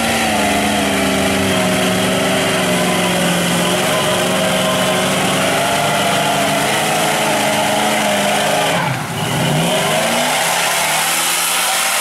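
Engine of a lifted Ford Expedition on tractor tires running hard under load in deep mud, its revs dropping sharply about three-quarters of the way through and then climbing again.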